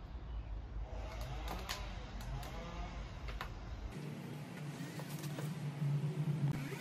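Hand caulking gun being worked along the joists, its trigger and rod clicking in an uneven series as a bead of subfloor construction adhesive is pushed out. A low rumble underneath stops about four seconds in.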